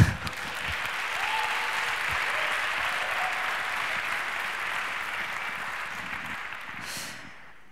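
Audience applauding, opening with a single sharp thump; the clapping builds within a second, holds steady, then dies away near the end.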